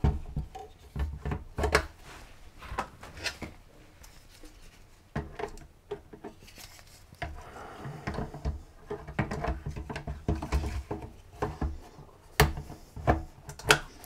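Hard-drive trays sliding into the drive bays of a QNAP TS-251+ NAS: plastic rubbing and scraping with scattered clicks and knocks, and a few sharper clicks late on.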